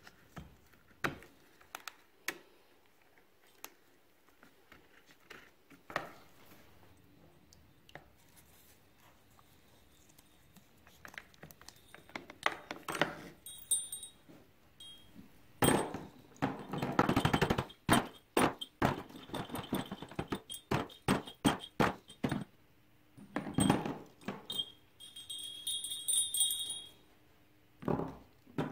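Small steel parts on twisted wire being handled and hung in plastic plating tubs: irregular clicks, taps and light metallic clinks, a few of them ringing briefly. The handling gets busier and louder about halfway through, with a stretch of rustling and scraping.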